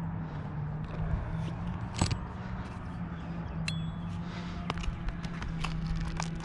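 Light scattered taps, clicks and scrapes of hand tools working roofing shingles, with a sharper click about two seconds in and a brief metallic ping a little later, over a steady low hum.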